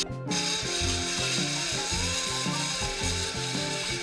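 Instrumental music with a stepping melody and bass line, over a steady rasping hiss from the tire-cutting machine. The sound drops out briefly at the very start.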